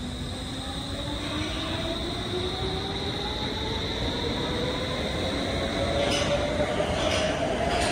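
Bombardier Movia C30 metro train accelerating away from the platform: its traction motors whine, rising steadily in pitch and growing louder as it picks up speed, over a steady high tone. A few sharp wheel clacks come in near the end.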